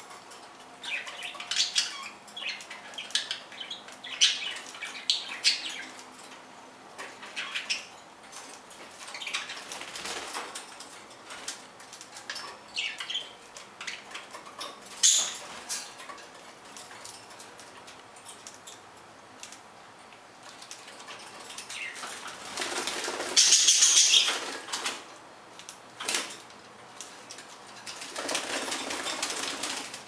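Pet budgerigars chirping in short bursts, with wings flapping. A longer, louder flurry of flapping comes about two-thirds of the way through, and another near the end.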